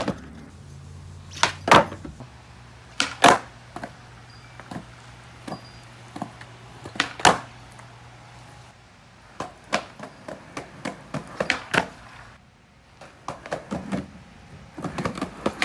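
Skateboard ollies: the tail snapping down and the board landing back on its wheels, sharp clacks that come in pairs about a third of a second apart, followed later by a run of lighter knocks and clatters of the board.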